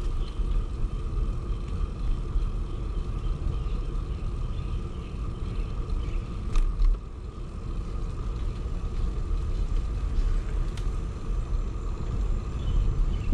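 Wind buffeting and rolling rumble on the microphone of a camera carried on a moving bicycle, with a steady faint whine in the background. Two sharp clicks come through, one about halfway and another about four seconds later.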